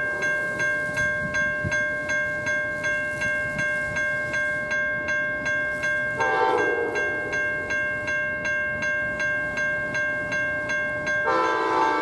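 Grade-crossing warning bell ringing steadily at about two and a half strikes a second as an approaching Amtrak GE P42DC diesel locomotive sounds its horn: a short blast about six seconds in, then a long blast starting near the end.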